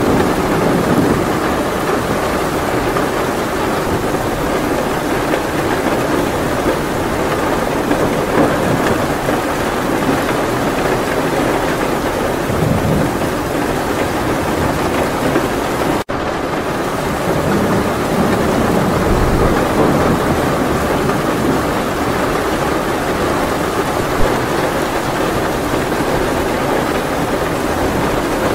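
Steady heavy rain with low rolls of thunder swelling now and then. The sound cuts out for an instant just past halfway.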